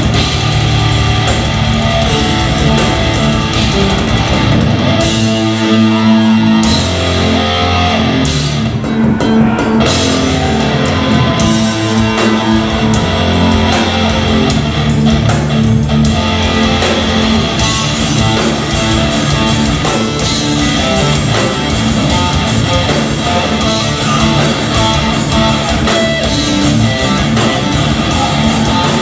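Live progressive metal band playing guitars and drum kit. The band thins out for a few seconds, from about five to eleven seconds in, before the full band comes back with busy cymbals.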